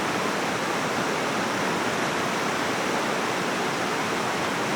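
Steady rush of water from a waterfall and river, with no breaks or changes.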